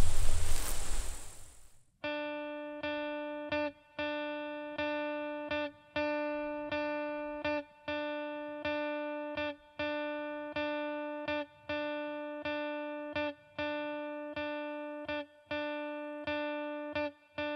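A noisy stretch that cuts off abruptly about two seconds in. Then music begins: one amplified note at a single pitch, repeated in the same looping rhythm, each note sustaining and fading slightly before the next.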